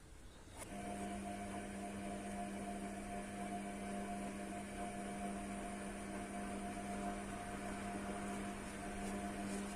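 A steady electric hum from a running appliance motor. It switches on under a second in and stops near the end.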